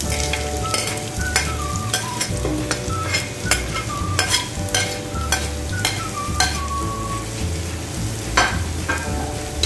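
Chopped red onion sizzling as it goes into hot oil with browning garlic, while a metal spoon scrapes it off a ceramic plate and stirs it in the pot, clinking and scraping again and again.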